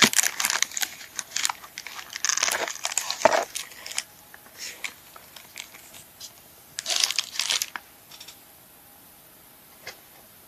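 Plastic parts bags and packaging crinkling and rustling as small circuit boards are handled. The rustling comes in bursts over the first four seconds, and once more briefly about seven seconds in.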